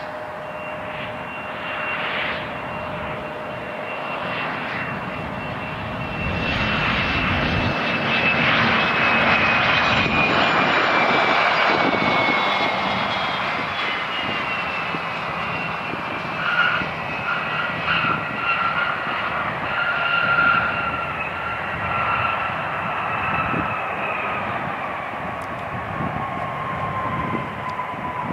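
Embraer ERJ-145 regional jet's twin Rolls-Royce AE 3007 turbofans during landing: a high whine over a rushing roar. The roar swells as the jet passes, loudest about 8 to 12 seconds in, then the whine falls slowly in pitch as the jet rolls out down the runway.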